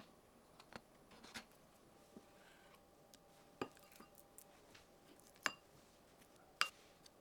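Kitchen utensils clinking against dishes: scattered light taps, then three sharper clinks in the second half, each with a short ring.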